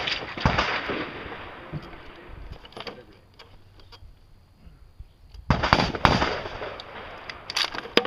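Rifle shots fired at steel targets, a few seconds apart and irregularly spaced, each trailing off in a long echo, with the heaviest report about five and a half seconds in and two more close together near the end.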